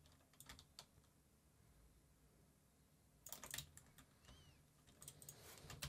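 Faint computer keyboard keystrokes in a quiet room: a few scattered clicks near the start, a short cluster about three and a half seconds in, and more just before the end.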